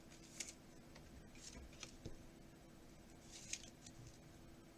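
Faint rustling and sliding of trading cards being handled, a few soft scratchy brushes about half a second, a second and a half and three and a half seconds in, over a low steady hum.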